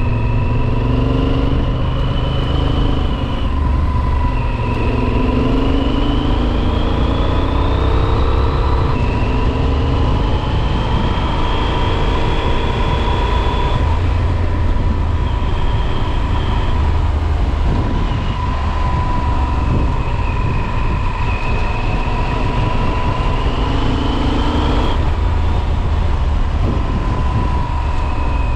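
Motorcycle engine running at road speed under the rider, its note climbing slowly and dropping back about five times, with a dense low rumble of wind and road beneath it.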